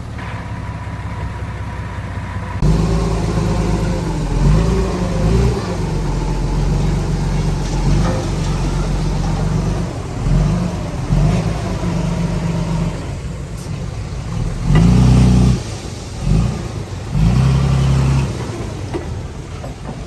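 Heavy construction machinery's diesel engine running under load, revving up and dropping back again and again.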